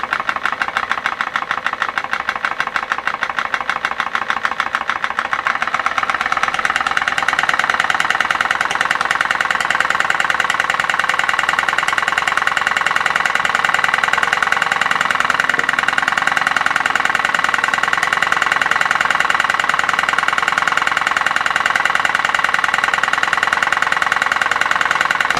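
Model 1-inch-bore double-acting horizontal steam engine (PMR 1880's drilling engine) running on steam with a fast, even exhaust beat. At first it is slowed by a hand braking the flywheel shaft as a load; about six seconds in it picks up speed and runs louder and faster.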